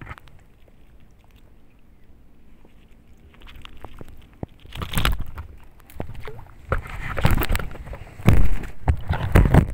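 Irregular bumps and rustles of handling noise, in uneven bursts, as fishing pliers work a lure's treble hook free of a small fish held in a lip grip. The first few seconds are quieter.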